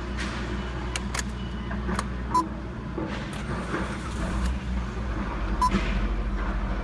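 Nissan Skyline R34's RB25 2.5-litre straight-six being started. A few sharp clicks come first, then about five seconds in the engine catches and settles into a fast, pulsing idle near 2,000 rpm.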